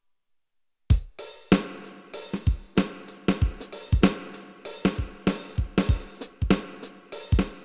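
Drum kit sounds from a Kurzweil KP110 keyboard: kick, snare, hi-hat and cymbal hits in a steady beat, starting suddenly about a second in after silence.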